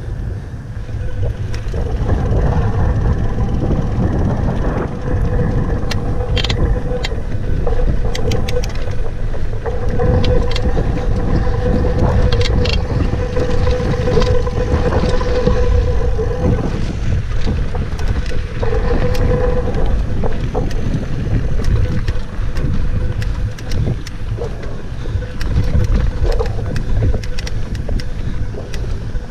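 Mountain bike rolling down a dirt singletrack: steady rumble of tyres and wind on the chest-mounted microphone, with scattered clicks and rattles from the bike. A steady hum comes and goes through the middle.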